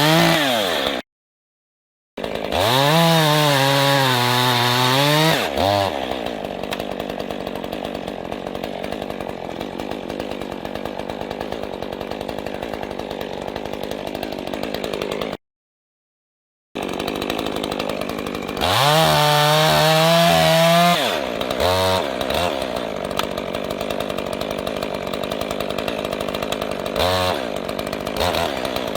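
Two-stroke chainsaw idling, revved up to full throttle twice and held there for a few seconds each time, dropping back to idle, with a couple of brief throttle blips later. The sound cuts out completely twice for about a second.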